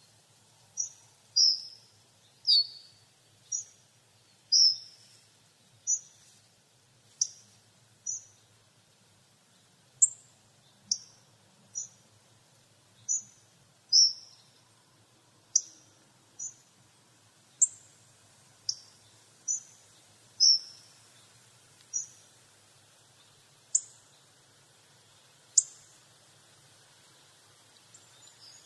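Hawfinch calling: short, sharp, high-pitched single notes repeated about once a second at irregular intervals, some with a quick downward slur.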